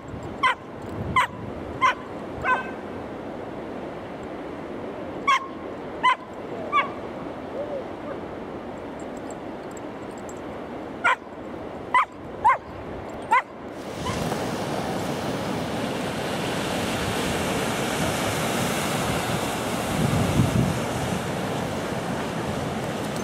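A dozen short, high-pitched animal yips or barks in three bursts, then a sudden change about 14 seconds in to a steady rushing noise that lasts to the end.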